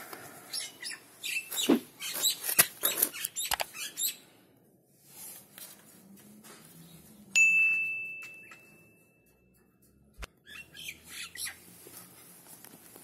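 Small birds chirping, mixed with short clicks. About halfway through, a sudden ring leaves one clear high tone that fades over a couple of seconds, followed by a single knock.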